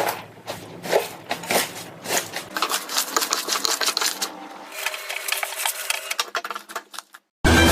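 Slime being pressed and worked by hand, giving a run of irregular sticky clicks and crackling pops, densest in the middle. After a moment's silence near the end, loud electronic music cuts in.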